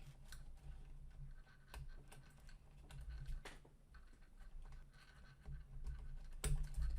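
Small, irregular clicks and taps of a cable and plastic parts being handled while a wire is routed into the 3D printer's electronics housing, with one louder knock near the end.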